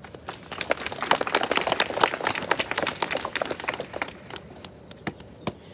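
Scattered hand clapping from a small outdoor crowd: dense at first, then thinning out to a few separate claps near the end.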